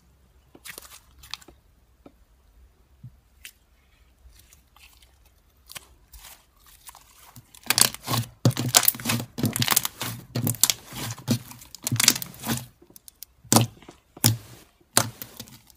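Thick white slime being stretched, then squished and kneaded by hand, giving short sticky clicks and pops. Sparse and faint for the first several seconds, then a dense run of crackly pops from about eight seconds in.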